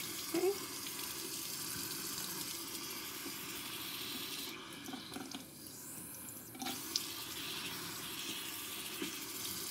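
Bathroom tap running steadily into a sink, with small splashes as someone washes at it. The hiss of the running water dulls for about two seconds midway.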